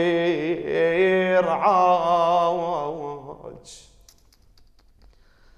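Male voice chanting an Arabic Husayni lament (radood recitation) in long held, wavering notes that fade out about three seconds in, followed by a brief hiss and a pause.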